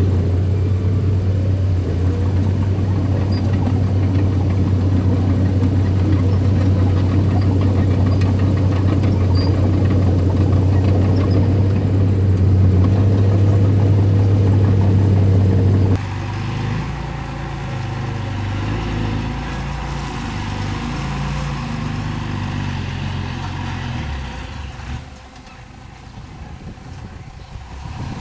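Diesel engine of earth-moving machinery running steadily with a strong, even hum. About halfway through, the sound changes abruptly to a quieter engine whose pitch rises and falls as it works, dropping lower near the end.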